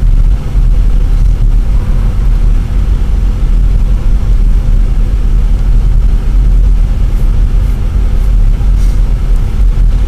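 Car in motion on a snow-covered road, heard from inside the cabin: a steady low rumble of engine and tyres with a faint hum.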